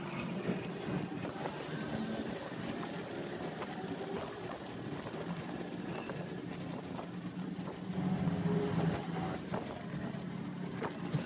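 A steady engine hum that swells about eight seconds in, with a few faint clicks from a knife working into the rubber casing of a tractor tire.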